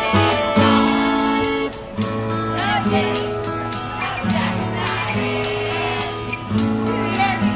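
Karaoke music with a steady beat, and a group of amateur singers singing along into microphones over the bar's PA.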